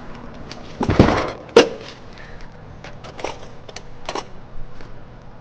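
Handling knocks: a loud thump about a second in, a sharp knock about half a second later, then scattered lighter knocks and clicks.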